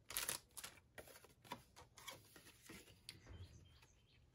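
Soft rustling and crinkling of a clear plastic bag and card-stock die-cut sheets being handled, loudest in the first second and a half and then thinning to faint handling noise. Faint bird chirps come in about three seconds in.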